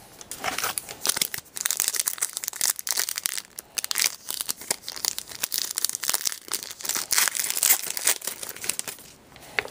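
Foil wrapper of a hockey card pack crinkling as it is handled and torn open: a dense, irregular crackle that dies away near the end.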